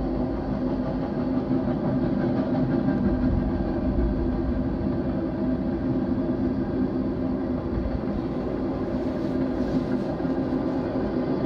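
BNSF intermodal freight train passing, a steady continuous sound weighted to the low end with a few steady tones running through it.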